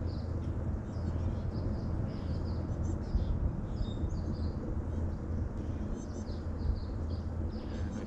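Several small songbirds, warblers among them, giving short high chips and brief twittering notes, scattered across the whole stretch, over a steady low rumble.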